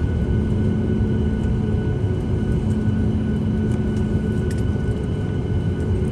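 Steady rumble and hum inside the cabin of a Boeing 737 MAX 8 taxiing after landing, its CFM LEAP-1B engines at idle.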